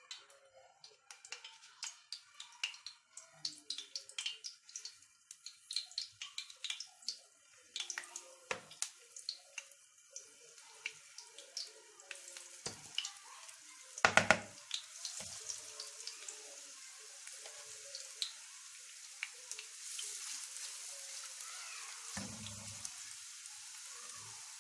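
Starch-coated chicken pieces deep-frying in hot oil in a pan: many sharp crackles and pops, then a steady sizzle from about halfway. A loud clatter comes about halfway through and a dull knock near the end.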